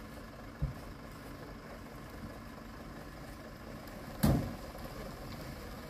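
Diesel truck engines idling in a stalled queue, a steady low rumble. A small thump comes just under a second in, and a short, loud knock about four seconds in.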